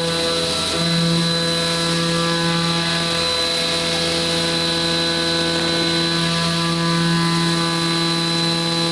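CNC vertical machining centre running: a steady mechanical whine made of several pitched tones, with a thin high note above them. The pitch holds level throughout.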